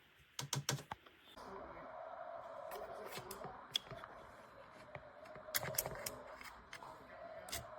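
A quick run of sharp clicks and taps, then a steady hum that comes in about a second and a half in, with more scattered clicks over it.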